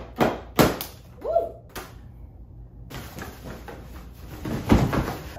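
Cardboard shipping boxes being handled on a wooden floor. There are several sharp thumps and scrapes in the first second or so and a second of silence midway. A louder thump comes near the end.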